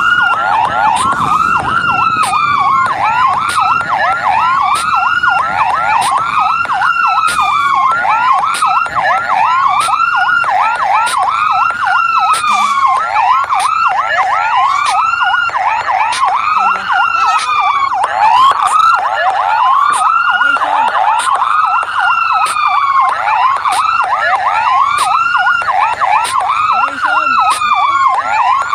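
Fire truck sirens sounding continuously and loudly: a wail sweeping up and down about once a second, overlapped by a faster yelping siren.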